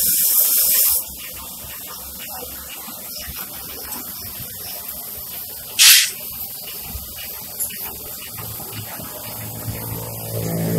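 Hissing from a traditional drum popcorn maker and its LPG gas line. A loud hiss cuts off sharply about a second in, leaving a low steady background, and one short, sharp burst of hiss comes about halfway through.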